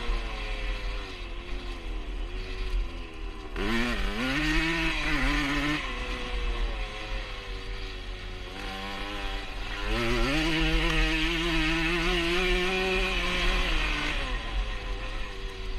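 1977 Honda CR125 Elsinore's single-cylinder two-stroke engine running on its newly fitted HPI ignition, being blipped twice: revs rise sharply about four seconds in and again near the middle, then are held up for a few seconds before dropping back.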